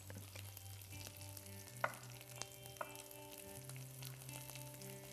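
Red onion rings, garlic and coriander seeds sizzling in oil in a pan, with a few sharp knife strikes on a wooden cutting board about two to three seconds in as a tomato is sliced.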